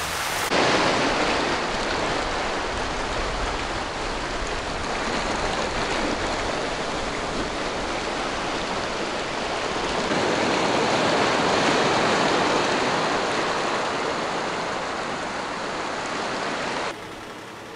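Small waves washing in over a sandy beach: a steady rush of foamy surf that swells louder about ten seconds in, then cuts off near the end.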